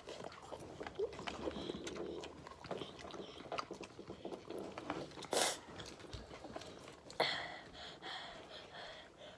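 Children eating spicy instant noodles from paper cups with forks: chewing and slurping, with light clicks of the forks against the cups and two short, louder rushing sounds about five and seven seconds in.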